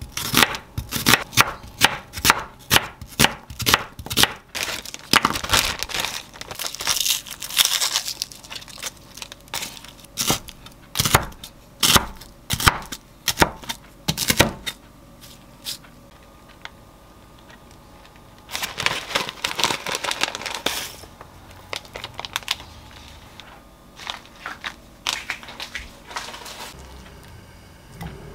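Chef's knife chopping an onion on a wooden cutting board, a quick run of sharp knocks, then knocks of the knife cutting through frozen bacon laid on paper. Two stretches of paper crinkling come between and after the cutting.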